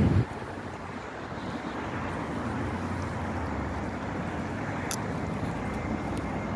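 Steady low rushing background noise with a brief low thump right at the start and a faint click about five seconds in.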